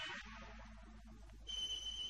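Film-soundtrack music stops just after the start. About one and a half seconds in, a steady high-pitched tone starts and holds.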